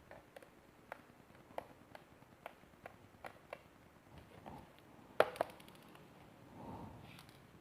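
Light clicks and taps of hand tools and a plastic laptop case being worked on while its screws are removed. Two sharper snaps come close together a little past five seconds in.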